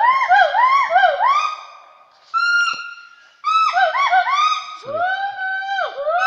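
Western hoolock gibbons singing: several overlapping whooping calls, each rising then falling in pitch, repeated in quick succession. The chorus drops away about two seconds in, leaving a single held note, then picks up again.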